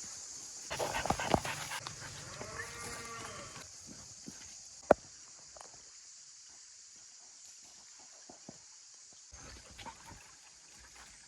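Rustling and knocks, then an animal call of several rising-and-falling notes lasting about two seconds, with one sharp click a little later.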